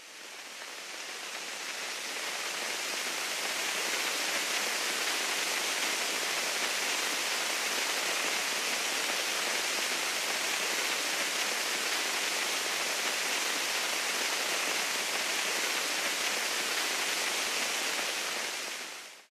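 Rain sound effect: a steady, even hiss of falling rain that fades in over the first few seconds and cuts off abruptly at the end.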